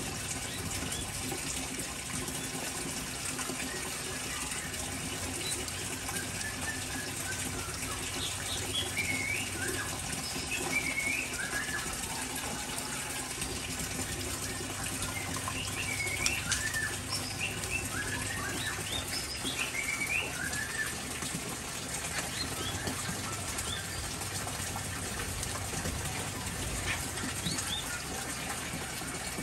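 Steady hiss of falling water in an aviary, with short, curved chirping calls from small birds scattered through the middle and a flutter of wings as a bird flies past.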